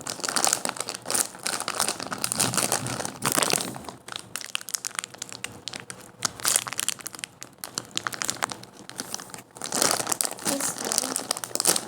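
Crinkling and rustling in irregular clusters from hands handling and squeezing a slow-rising foam squishy toy close to the microphone.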